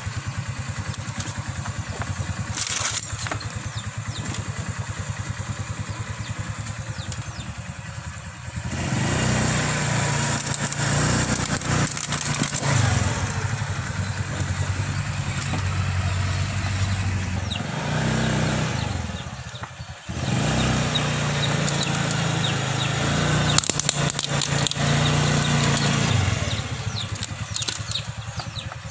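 A motorbike engine running at low speed while its tyres roll over and crush old circuit boards and a power supply unit, with cracks and snaps of breaking boards and plastic now and then.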